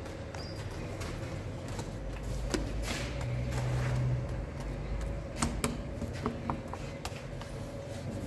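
Steady low hum of the bakery around the bread oven, with a few light clicks and knocks past the middle as dough is pressed out on a long wooden peel.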